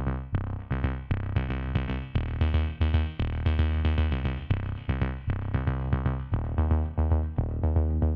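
Electronic background music with a drum-machine beat, a heavy synth bass line and short repeated pitched notes.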